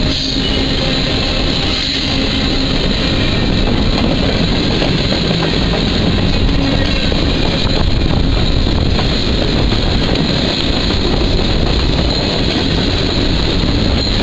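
Freight cars rolling past at close range: a steady rumble of steel wheels on the rails.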